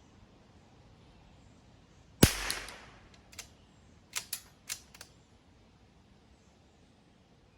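A single rifle shot with a short trailing echo, a couple of seconds in, followed over the next few seconds by several quieter sharp clicks.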